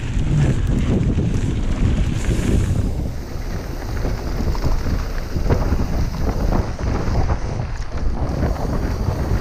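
Wind rushing over the microphone as a Trek Remedy mountain bike rolls down a dirt and gravel trail, with tyres crunching and many small clatters from the bike over the rough surface.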